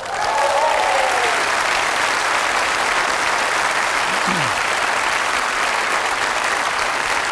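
Studio audience applauding, starting suddenly and holding steady throughout.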